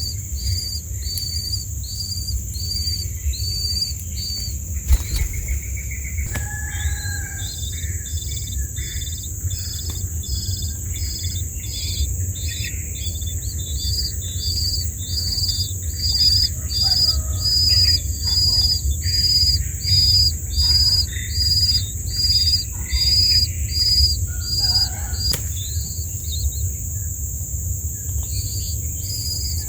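Nestling birds chirping, their calls growing louder and coming in rhythmic bursts about once a second in the second half, typical of chicks begging at feeding. Underneath, an insect trill and a short chirp repeat steadily about twice a second, with a sharp click about five seconds in.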